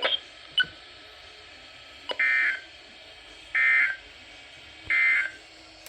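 NOAA Weather Radio's SAME end-of-message code: three short, buzzy bursts of digital data tones, evenly spaced about a second and a half apart, over a faint broadcast hiss. It marks the end of the severe thunderstorm warning.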